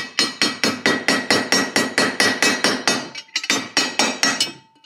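Brass hammer tapping rapidly on a steel socket, about six light strikes a second with a faint metallic ring, to drive a power valve bearing into a heated aluminium motorcycle engine case. The taps pause briefly about three seconds in, then resume.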